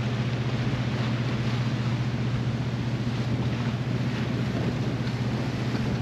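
Steady low hum of a car ferry's engines under an even wash of wind noise.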